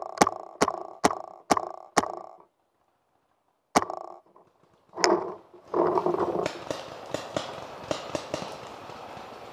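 Paintball marker firing five quick shots, about two and a half a second, each sharp crack with a short ringing tail, then two more single shots a second or so apart. After that comes a steady rustling with small clicks as the gun and player shift against the log.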